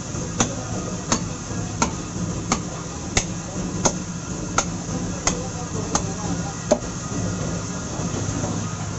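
Butcher's blade striking a wooden chopping block as beef is cut: about ten sharp knocks, evenly spaced a little under a second apart, which then stop, over a steady low rumble of background noise.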